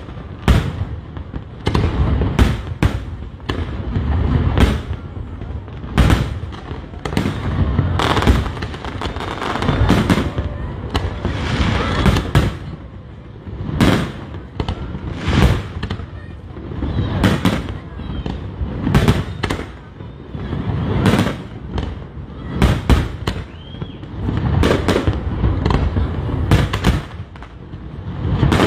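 Aerial fireworks display: many sharp bangs in quick succession, some in close clusters, over a continuous low rumble.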